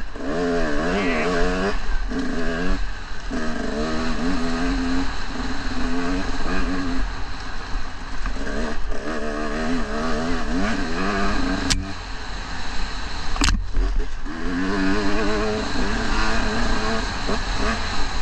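KTM dirt bike engine revving up and down in repeated throttle bursts as it rides a muddy, snowy trail, with a steady low rumble underneath. Two sharp knocks come about two-thirds of the way through.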